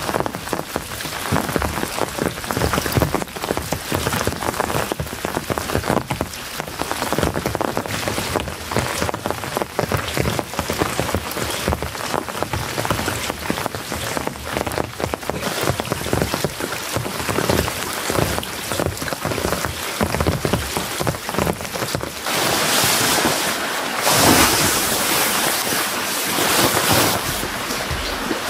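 Steady rain falling, with many separate drops striking a surface close by. About 22 seconds in it turns into a denser, louder hiss.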